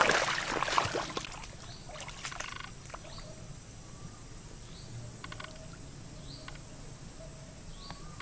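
Water splashing for about the first second, then a steady high-pitched insect drone with a few faint short chirps.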